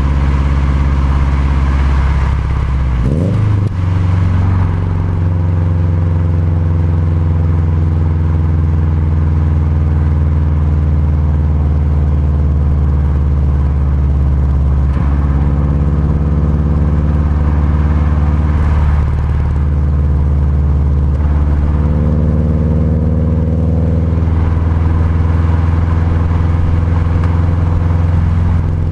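Subaru WRX's turbocharged flat-four engine running under way as the car is driven, a steady drone that rises and falls quickly in pitch about three seconds in, then sags slowly and shifts pitch a few times.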